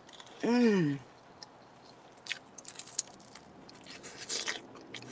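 A short drawn-out vocal exclamation about half a second in, then close-up biting and chewing of a crispy Little Caesars Crazy Puff, with scattered crunchy clicks and crackles.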